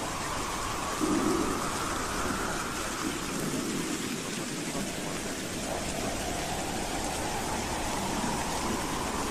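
Howling wind: a steady rush of noise with a faint whistling tone that slowly rises and falls, and a louder low gust about a second in.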